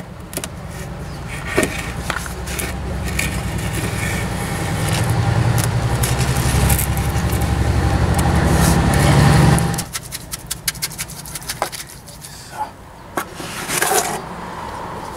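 An engine runs with a low rumble that grows louder and cuts off suddenly about ten seconds in. After it stops, a wooden board scrapes over wet screed, with light knocks against the wooden formwork.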